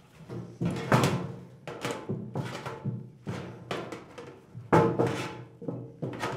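Hand seamer folding the flange of a galvanized sheet metal end cap tight onto a plenum box. It gives a series of sharp metallic clanks, roughly one a second, each leaving the hollow box ringing briefly like a drum.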